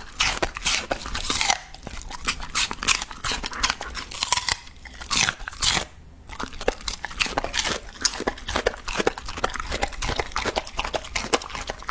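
Border collie chewing crisp raw green bell pepper and apple: many quick, irregular crunches, with a short pause about six seconds in, followed by more chewing and lip-smacking.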